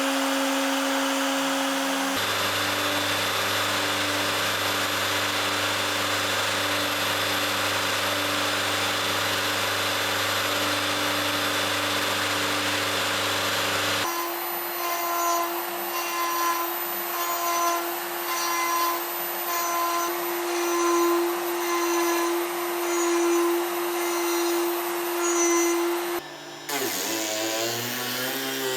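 CNC router spindle running at speed while a milling cutter cuts, across several cut-together clips: a steady spindle whine over cutting noise. In the middle stretch the cutting noise swells about once a second, and near the end the whine drops and climbs again as the spindle speed changes.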